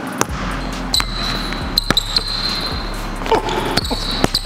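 Basketball being dribbled hard on a hardwood gym floor: irregular sharp bounces as the player changes speed and direction.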